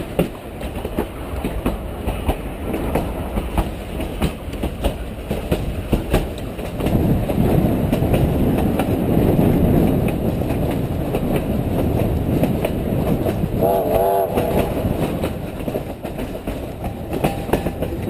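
Durango & Silverton narrow-gauge steam train running: a steady rumble with wheels clicking over the rail joints, louder from about seven seconds in. A brief wavering tone sounds about fourteen seconds in.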